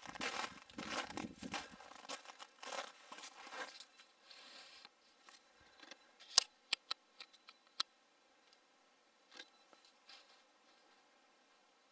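Footsteps crunching in crusty snow, with some rustling, for the first four seconds. After that it goes much quieter, with a handful of sharp clicks around the middle.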